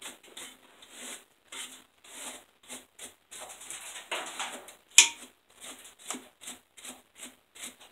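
Quick scraping strokes of a hand tool on the cast-iron block of a Dodge 318/360 V8, about two or three a second, cleaning the gasket surfaces. A single sharp knock of the tool on the block about five seconds in.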